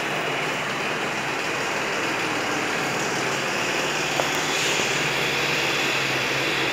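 Steady rushing background noise, with a faint click about four seconds in.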